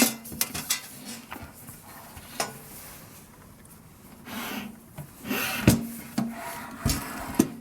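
A small countertop toaster oven and its plastic wrapping being handled: rubbing and scraping, with a few separate knocks and clicks.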